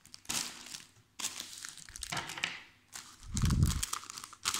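Crinkling of the thick plastic wrapping around a partwork magazine and its model parts as it is handled to be opened, in several bursts. A dull thump about three seconds in.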